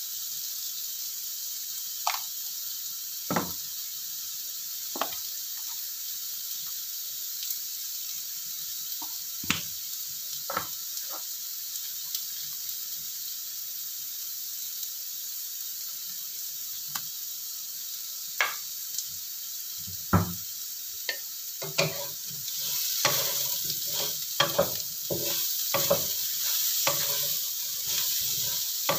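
Cubed tempe, eggplant and small anchovies sizzling steadily in a wok, with a few scattered light clicks. About 22 seconds in, a wooden spatula starts stirring and scraping the food around the pan, louder and busier.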